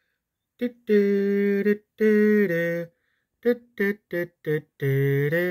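A person singing or humming a short wordless tune: a few long held notes, then several quick short ones, ending on a held note that steps up in pitch.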